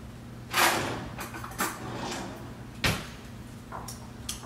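Kitchen handling sounds: a few sharp knocks and scrapes, the loudest about a second in, then a fork clicking and scraping in a bowl as avocado is mashed. A steady low hum runs underneath.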